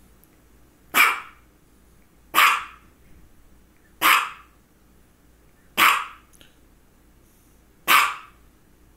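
Small white long-haired dog barking: five single sharp barks, one every one and a half to two seconds.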